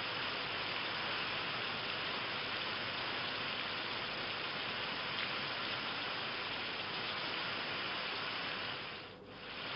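Heavy rain falling steadily, an even hiss that briefly drops away near the end.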